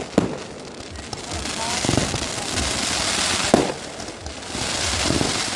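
Fireworks going off: two sharp bangs, one just after the start and one about three and a half seconds in, with a dense hiss from the bursting shells in between.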